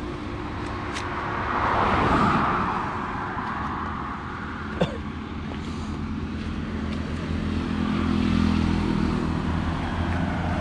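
Road traffic going by: a vehicle passes about two seconds in, and a low engine hum grows louder near the end. A single sharp click comes about five seconds in.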